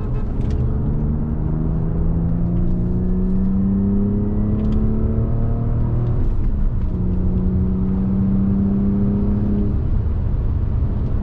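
Audi A6 3.2 FSI V6 engine pulling hard under full throttle, heard from inside the cabin: its note rises steadily, drops at a manual upshift about six seconds in, climbs again, then falls away near the end. Road and tyre rumble runs underneath.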